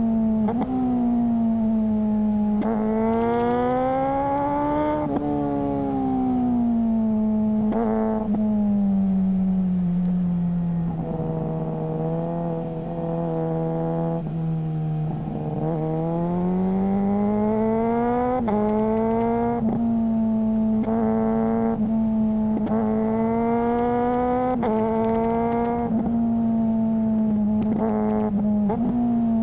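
Suzuki GSR600 inline-four through a GPR Ghost exhaust, the engine's pitch rising and falling slowly with several brief breaks, typical of quickshifter gear changes.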